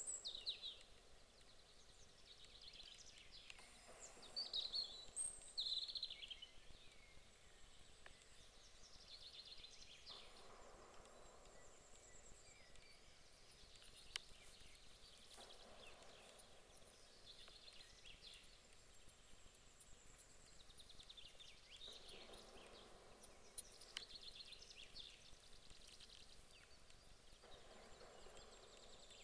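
Faint songbirds singing in a forest, short high chirping phrases repeating every five or six seconds, loudest in the first few seconds. A single sharp click about fourteen seconds in.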